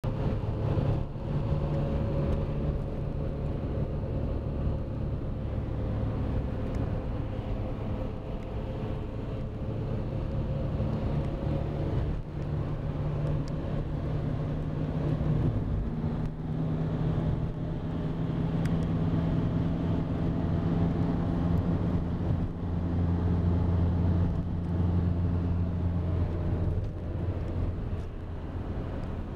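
Vehicle engine and tyre noise heard from inside the cab while driving at motorway speed: a steady drone with a low engine hum that shifts in pitch a couple of times.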